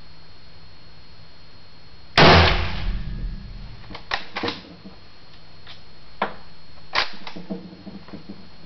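A single shot from a La Coruña FR8 bolt-action rifle in 7.62 NATO about two seconds in, ringing in a small room. It is followed by the bolt being worked: a string of sharp metallic clicks and clacks, the loudest near the end.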